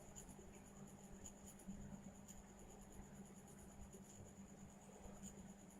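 Near silence: room tone with a low steady hum and a few faint ticks.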